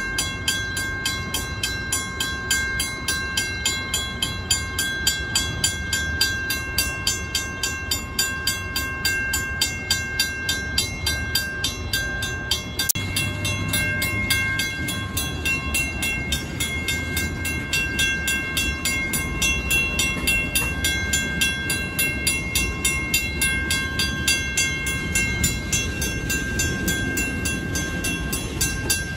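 First-generation WCH mechanical crossing bell ringing with steady, rapid, evenly spaced strokes, over the low rumble of freight tank cars and hoppers rolling through the grade crossing.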